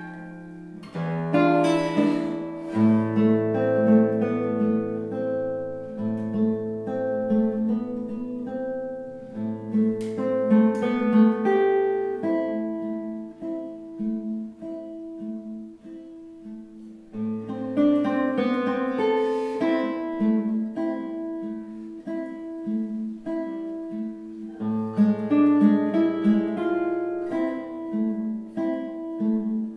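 Solo classical guitar, a José Marques instrument with a spruce top, rosewood body and 640 mm scale, played fingerstyle. Bass notes are held for a few seconds each under quicker plucked notes. The playing grows louder, falls back quieter around the middle, then swells again.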